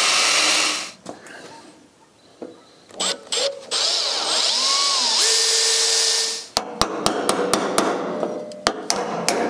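An angle grinder runs on the tractor's bonnet grille and stops about a second in; a drill then runs for about three seconds, drilling at a grille rivet. From about two-thirds of the way through, a hammer strikes a hand tool in a quick series of metal taps, roughly four a second, to knock the emblem loose.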